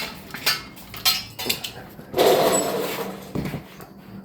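Metal exhaust parts being handled: several sharp clinks, then a longer scraping clatter about two seconds in.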